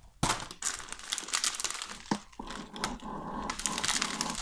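Plastic food packaging crinkling and a shopping bag rustling as groceries are handled and pulled out of the bag, with irregular crackles and a few sharp clicks.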